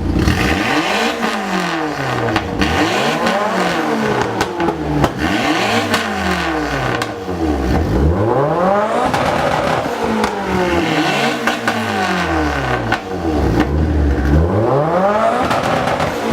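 Car engine revved hard over and over, its pitch climbing and falling back roughly every two seconds.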